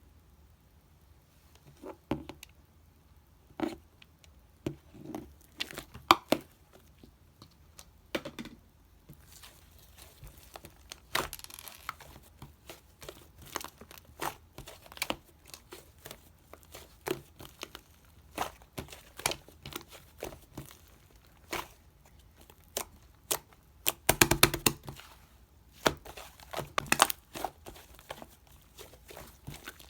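Cookies-and-cream slime being squished, stretched and pressed by hand, giving irregular sticky clicks and crackling pops, with a denser flurry of crackles late on.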